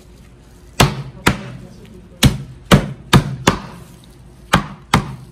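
Roast pig (lechon) being chopped with a bolo knife on a chopping board: eight sharp, unevenly spaced chops.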